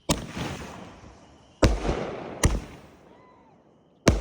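Consumer firework cake firing shots: four sharp bangs at uneven intervals, each with a low thump and trailing off in a fading hiss, the last one near the end.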